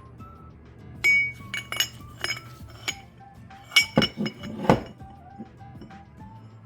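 Metal parts of a power steering pump and hand tools clinking and knocking against each other, a string of short sharp ringing clinks with the loudest cluster a little past the middle. Light background music plays underneath.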